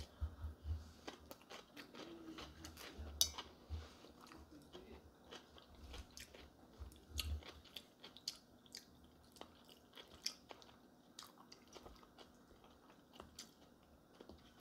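Close-up chewing of crisp fresh cucumber, with crunches and many small mouth clicks.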